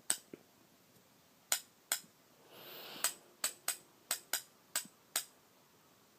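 A series of short, sharp clicks, roughly two a second and unevenly spaced, with a brief soft hiss a little before the middle.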